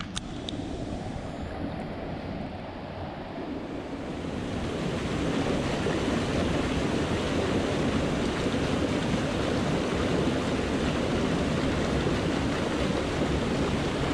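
River water rushing over riffles, a steady wash that grows louder about four seconds in.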